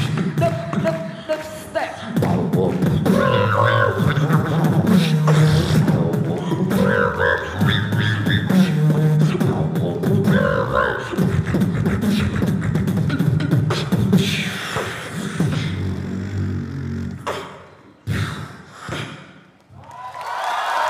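Two beatboxers performing together: a fast rhythm of vocal kick and snare clicks over a deep pulsing hummed bass line, with pitched, electronic-sounding vocal lines on top. Near the end the rhythm breaks into a few separate hits with short gaps, and applause begins just as it finishes.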